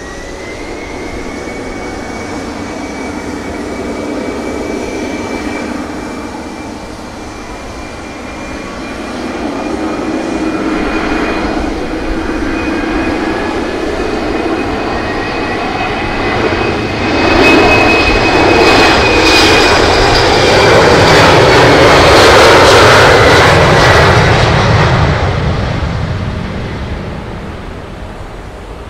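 Twin-engine jet airliner taking off: the engines' high whine rises as they spool up to takeoff thrust, then holds steady under a growing rush of jet noise. The noise swells to its loudest about two-thirds of the way in as the plane passes, then fades away.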